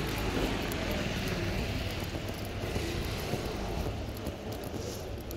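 Motor vehicle traffic passing on a city street, a steady rushing of engine and tyres that eases off near the end.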